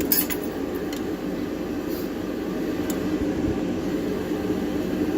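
Steady droning hum of a space heater running, with a few light clicks in the first three seconds.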